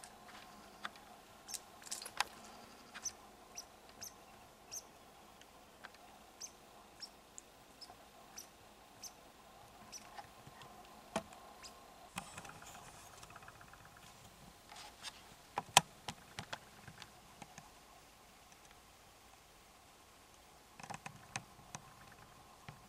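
A run of short, high chirps about every half second, from a small animal, then a few louder clicks and knocks in clusters later on.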